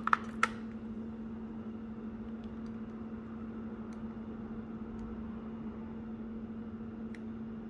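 A few sharp plastic clicks in the first half-second as a TI-83 Plus graphing calculator's case is handled, then a steady low hum with a few faint clicks of its keys being pressed.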